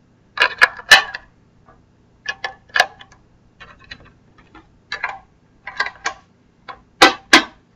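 Irregular plastic clicks and knocks of AA batteries being handled and pushed into an RC transmitter's battery compartment, with two louder clicks close together near the end.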